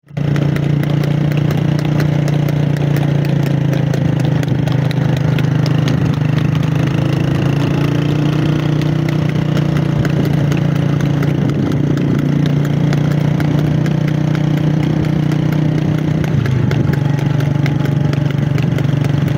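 Steady drone of a motor vehicle engine running at an even speed, with a scatter of faint clicks over it.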